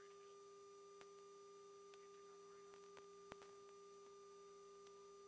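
Near silence on the aircraft intercom line: a faint steady electrical hum with a few faint clicks.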